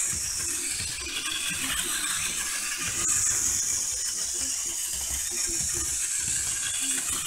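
Plarail toy train's small battery motor and gearbox whirring as the motor car runs round a plastic track, with its wheels rattling on the track. The high whir swells and fades about every three seconds as the car circles.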